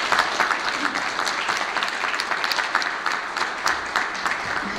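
An audience applauding, many hands clapping together, to close a speaker's talk; the clapping thins out and fades near the end.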